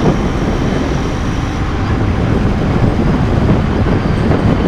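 Royal Enfield Interceptor 650's parallel-twin engine running steadily under way, with wind and road noise rushing over a body-worn recorder.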